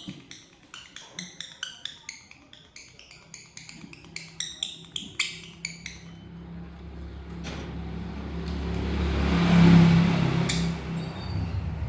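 Lovebirds chirping in quick, short, high calls, several a second, through the first half. Then a rushing noise with a low hum swells up, is loudest about ten seconds in, and fades.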